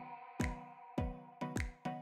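Background music with a steady kick-drum beat, just under two beats a second, over held chord tones.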